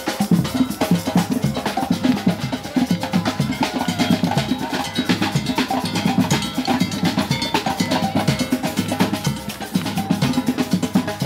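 Fast, dense drumming with bass drum and snare hits, running at a steady loudness, with some higher instrument tones faintly underneath.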